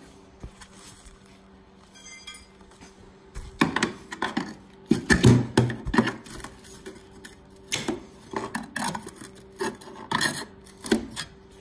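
Flaky rusted sheet steel in a 1971 VW Super Beetle's front inner wheel panel being pulled and scraped out by hand: irregular scraping and crunching. It starts about three seconds in and repeats in short bursts.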